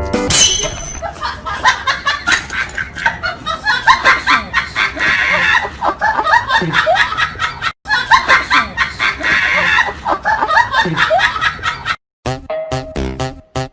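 A fast, busy run of high snickering, laughing sounds over music, with a brief break about halfway. Near the end it cuts to a different piece of music with an even beat.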